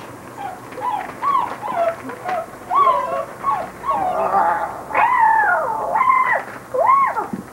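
Basset hound puppies whining and yelping in short cries that rise and fall in pitch, sparse at first, then overlapping and louder in the second half.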